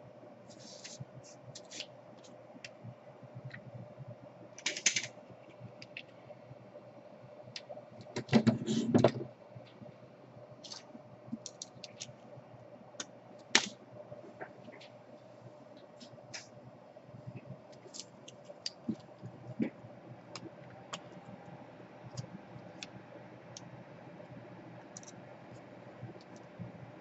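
Scattered small plastic clicks and taps from handling the opened laptop and its loose DC power jack, with a louder burst of rattling clicks about eight seconds in, over a faint steady hum.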